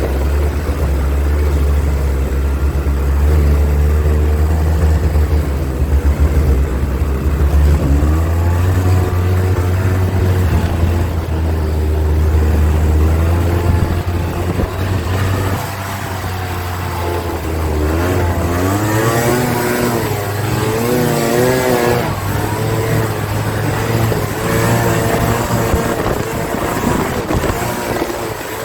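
Snowmobile engine running under way, a steady low drone for the first half, then its pitch rising and falling repeatedly as the throttle and engine speed change.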